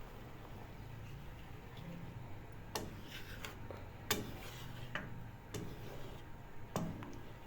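Kitchen utensil clinking against a cooking pot: about six sharp, irregularly spaced taps over a low steady hum.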